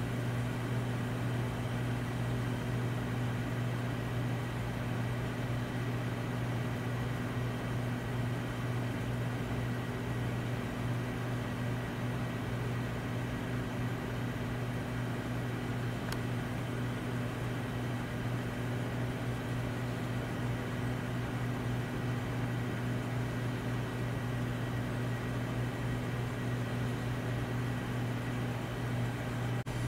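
A steady low mechanical hum with an even hiss over it, unchanging in pitch and loudness throughout.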